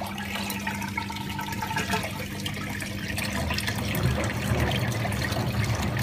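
Waste water from a front-loading washing machine draining through its hose into a floor drain pipe, with a steady rushing and trickling, over a steady low hum from the machine.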